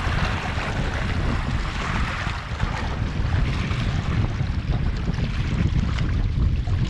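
Wind buffeting the camera microphone in a steady rumble, with small waves lapping and splashing against the shoreline rocks.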